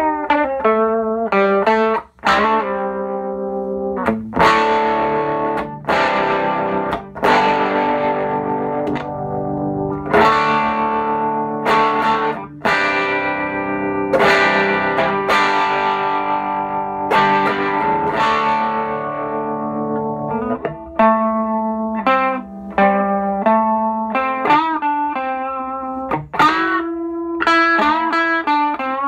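Electric guitar played through a Sano 16WR vintage tube amplifier combo: chords struck every second or two and left to ring, then quicker single-note lines over the last several seconds.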